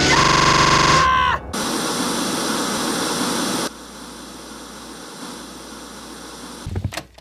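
A cartoon character's high-pitched scream lasting about a second, bending down at the end. Then a steady hiss of television static, which drops to a quieter level a little past the middle.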